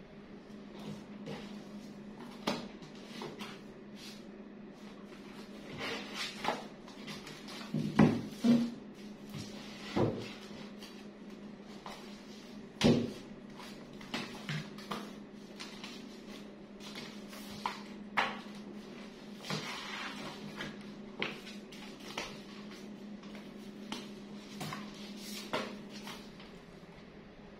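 Books and papers handled and set down on a wooden desk and shelf: scattered knocks and rustles, the sharpest about a third and halfway in. A steady low hum runs underneath.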